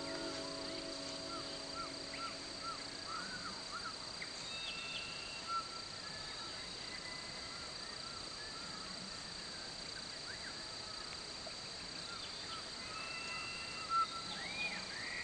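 Rural outdoor ambience: a steady high-pitched insect drone with birds chirping, including a quick run of short up-and-down chirps in the first few seconds and more calls near the end, where one short louder note stands out. Closing music fades out at the start.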